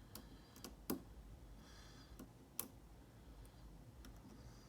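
Faint, irregular metallic clicks of a deep hook pick and tension wrench working the pin stack of a brass Abus 83/45 padlock, as the pins are picked again after being overset. The sharpest click comes about a second in.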